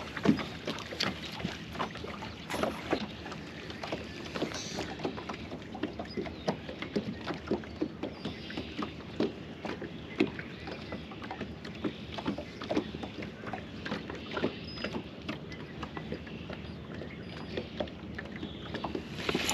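Small wind-driven waves lapping and slapping against the boat's hull, a steady wash with many irregular light knocks and splashes.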